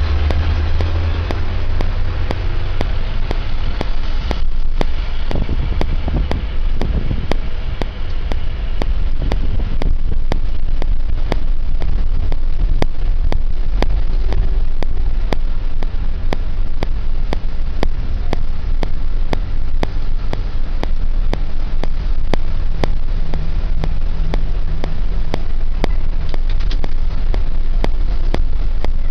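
Road vehicle driving, heard from inside the cabin: a steady, loud low rumble of engine and road noise.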